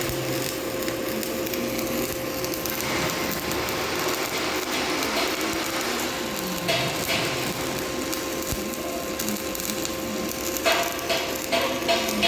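Stick-welding arc from a 4.0 mm E7018 electrode at 150 amps, a steady crisp crackle and sizzle as the bead is run, with a faint steady tone beneath it. The crackle grows a little sharper and more popping near the end.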